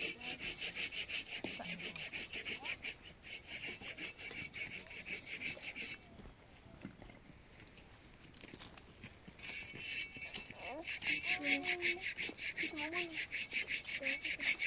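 A fast, even rasping pulse of about six strokes a second that fades for a few seconds in the middle and returns louder near the end, with brief voice sounds, likely a child's, over it late on.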